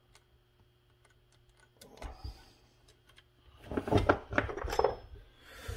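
Clicks and clattering knocks of hand tools and saw parts being handled on a workbench. There are a few faint clicks at first, then a busy run of clatter starting past the middle.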